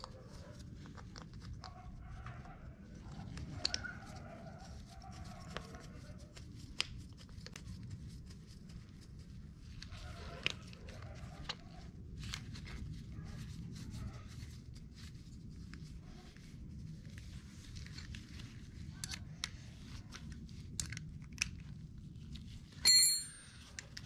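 Small clicks, scrapes and rustles of carburetor parts being handled as the main jet is fitted, over a steady low hum. A short, loud, high-pitched sound about a second before the end.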